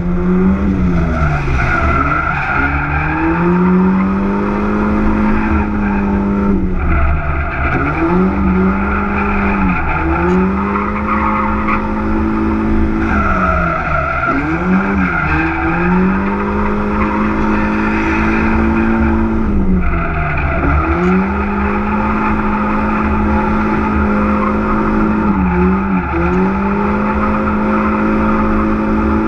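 Drift car's engine held at high revs, the pitch dropping sharply and climbing back about six times as the car is slid from drift to drift, with tyres skidding under it.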